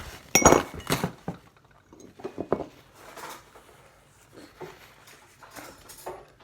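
A spoon clinking against a dish: a few sharp, ringing clinks about half a second to a second in, then scattered softer taps and scrapes.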